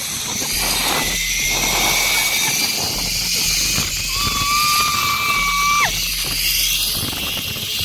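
Zip-line ride: a steady rush of wind over the phone microphone with the rumble of the trolley running down the cable. About four seconds in comes one long high-pitched yell that drops off sharply at its end.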